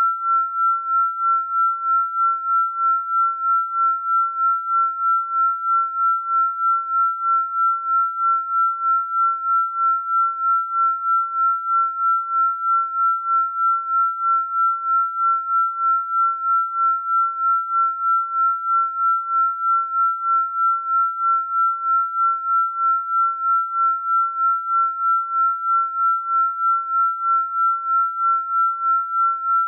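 A steady, electronically generated pure tone, fairly high in pitch and unchanging, pulsing evenly in loudness about two and a half times a second, as in a beating or binaural-beat healing-frequency track.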